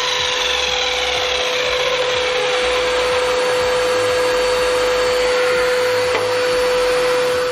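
Belt-driven 2000-watt motor and 305 mm carbide-tipped blade of a SIP 12-inch sliding compound mitre saw running and cutting timber: a loud, steady whine at a constant pitch.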